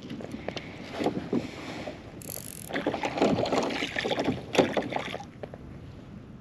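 Water sloshing against a plastic fishing kayak's hull, with scattered knocks and handling noises from the angler and his gear; busiest and loudest from about three to five seconds in, then it settles.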